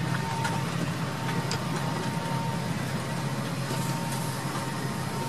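Steady low hum of a parked Airbus A330's cabin air system, with a few faint clicks.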